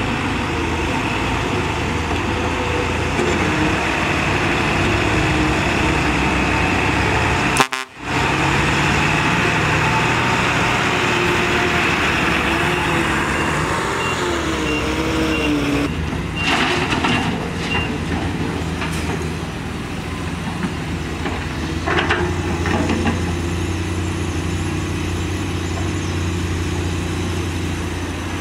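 Diesel dump truck engines running steadily while the trucks manoeuvre, their pitch wandering up and down, with a few short clattering knocks in the second half. The sound breaks off briefly about eight seconds in.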